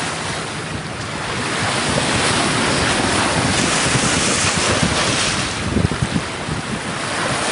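Wind buffeting the microphone over the rush of water along the hull of a sailing ketch under way, rising and falling in gusts.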